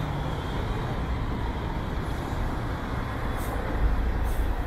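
Articulated city bus driving in close past, its engine running steadily low, with traffic behind. Two short hisses come near the end.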